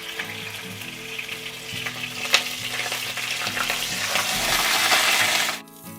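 Onion paste sizzling in hot oil with whole spices as it is stirred in a pan. The sizzle grows louder toward the end, then stops abruptly, with one sharp knock of the utensil against the pan about two seconds in.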